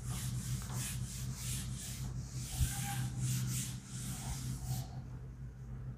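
Chalkboard duster wiping chalk off a blackboard in repeated rubbing strokes, stopping about five seconds in.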